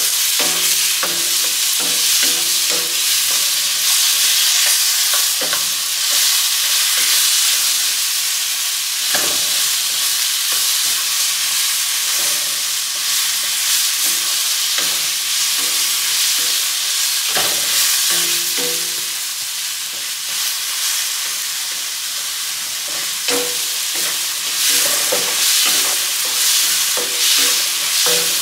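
Grape tomatoes, red onion and garlic sizzling steadily in olive oil in a wok, cooking down until they burst, while a wooden spatula stirs and scrapes through them. The spatula knocks against the wok now and then.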